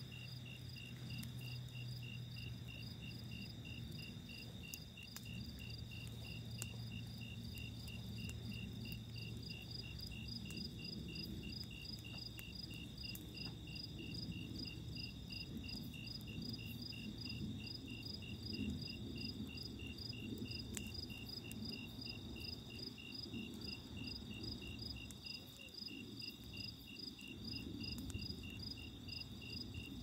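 Night insects chirping in a steady, even pulse, over a continuous high trill. Faint crackles come now and then from a wood campfire.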